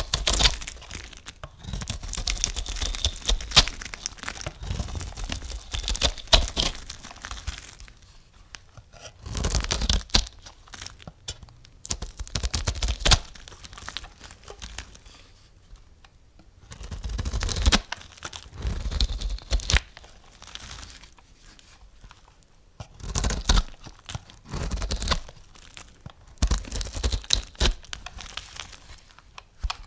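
A knife cutting through a bar of soap, with crackly, crunching sounds as the blade goes through. One long cut at the start is followed by several shorter cuts with pauses between them.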